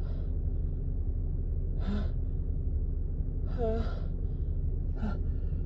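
A woman's pre-sneeze gasps: four short, catching in-breaths, the third one longer and voiced, as a sneeze builds from a tickling, cold-stuffed nose and doesn't yet come. A steady low hum runs underneath.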